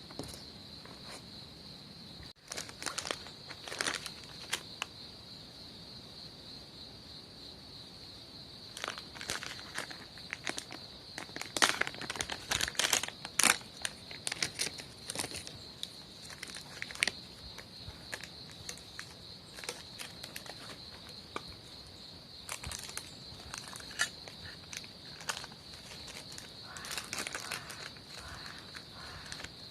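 A steady, high-pitched insect chirr outdoors, with irregular crackles and clicks over it that come in a busy cluster in the middle and again near the end.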